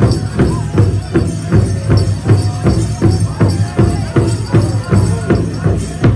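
Powwow drum and singers: a big drum struck in a steady, even beat of about two and a half strokes a second, with a group of voices singing over it.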